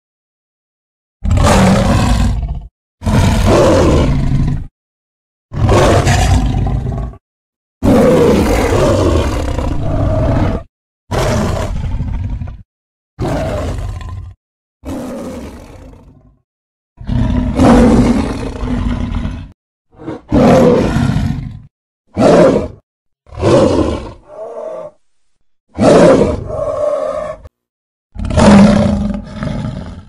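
A string of about fifteen separate big-cat roars and growls, sound-effect clips edited one after another, each lasting from half a second to about three seconds, with dead silence between them.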